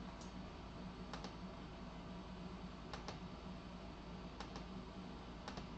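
Faint clicks over a steady low room hum. They come mostly in quick pairs, about five times, a second or so apart.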